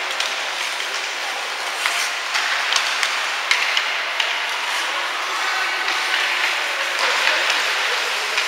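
Ice hockey play on a rink: a steady scraping hiss of skates on the ice, broken by scattered sharp clacks of sticks and puck.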